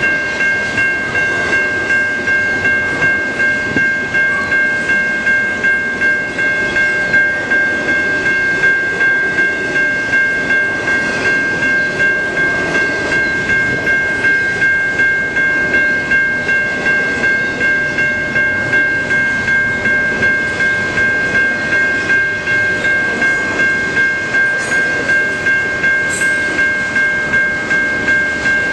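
Level-crossing warning bell ringing in rapid, even strikes over the steady rumble and wheel clatter of a passing double-stack intermodal freight train.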